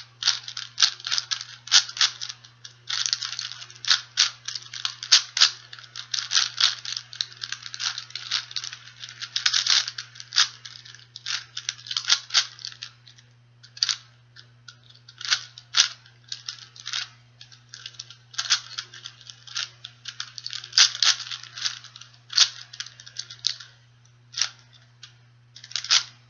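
Plastic 4x4x4 Rubik's Cube being turned quickly by hand: a rapid, irregular stream of clicks and rattles as its layers snap round, while a parity-fix algorithm is worked through. It thins to scattered clicks in the last few seconds, over a steady low hum.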